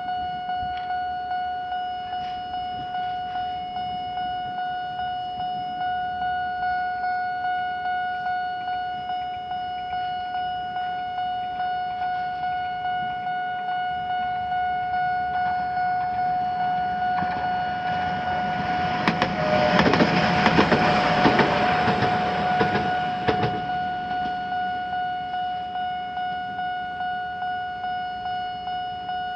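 Japanese level-crossing electronic warning bell ringing in a steady repeating ding, about one and a half strokes a second. About two-thirds of the way in, an Echizen Railway train passes over the crossing for several seconds, louder than the bell, its wheels clicking over the rail joints.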